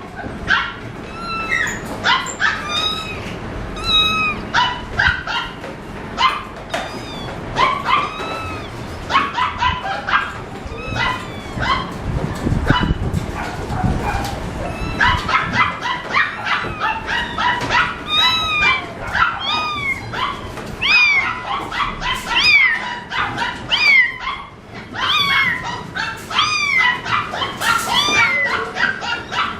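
Young pets calling: many short, high-pitched cries, several a second and often overlapping, with a low hum of room noise beneath.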